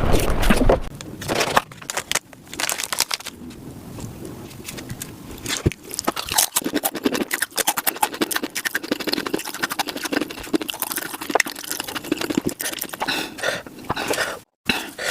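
Close-miked eating sounds played back sped up: a dense, irregular run of crunching, chewing and mouth clicks. A loud low rumble stops under a second in.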